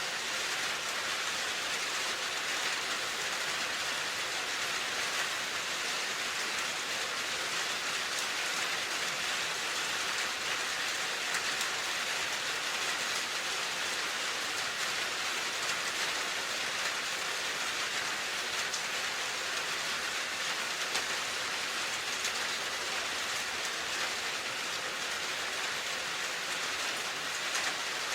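Steady rain falling, an even hiss with scattered drop ticks, unchanging throughout.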